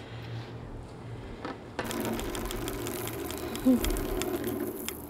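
Red record-like spinner disc turning on its stand, whirring with a fast, even rattle of clicks that starts about two seconds in.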